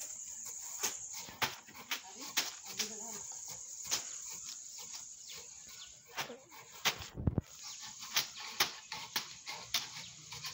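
Coconut coir fibre being pulled through hand combs: irregular sharp swishing and snapping strokes, several a second at times, over a steady high insect drone. A low thump comes about seven seconds in.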